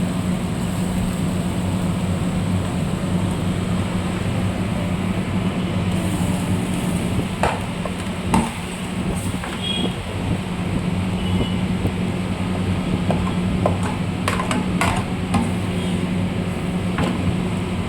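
Steady kitchen machinery hum with a low drone, with scattered clinks and knocks of utensils, most of them in the second half.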